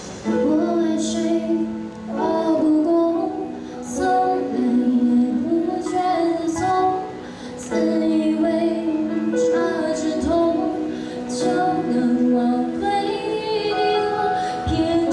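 A young woman singing a Mandarin song solo into a microphone over instrumental accompaniment. Her voice comes in just after the start, in short phrases with breaths between them.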